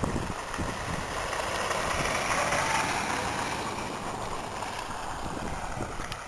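A vehicle driving past on a wet, snowy road: tyre and road noise swells to a peak about two to three seconds in, then fades away. Wind buffets the microphone underneath.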